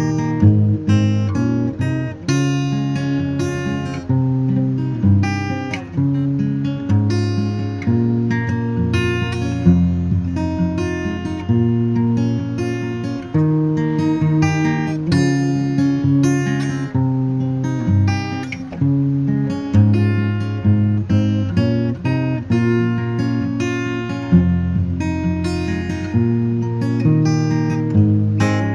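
Background music: strummed and plucked acoustic guitar playing a steady, repeating pattern.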